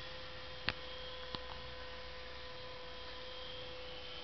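Model airplane's motor humming steadily in flight, one held tone with faint overtones. Two sharp clicks come about a second in.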